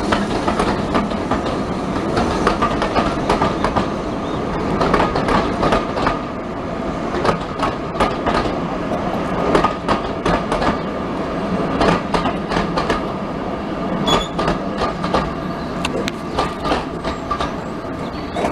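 Steam-hauled passenger train rolling past, the coach wheels clicking over the rail joints in a steady clickety-clack, the sound easing slightly toward the end as the train draws away.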